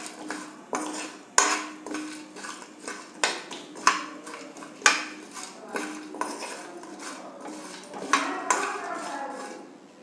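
A metal spoon stirring whole spices (cumin seeds, peppercorns, cloves, cardamom pods, cinnamon sticks, nutmeg) in a dry metal pan as they are dry-roasted. Irregular sharp clinks of spoon on pan, about one every half second, with the spices rattling and scraping between them; the stirring stops just before the end.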